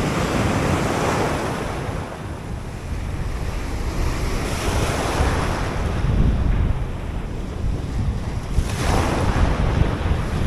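Ocean surf breaking and washing over a rocky shore, swelling in surges every few seconds, with wind buffeting the microphone.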